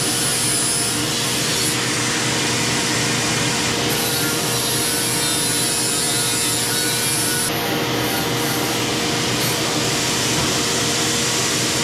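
Angle grinder running steadily against metal, grinding down the edges of a box to prepare them for welding.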